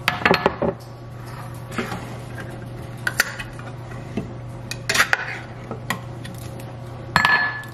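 Metal clinks and scrapes of a hand-held can opener working the lid of a soup can, in about five separate bursts of clatter. A steady low hum runs underneath.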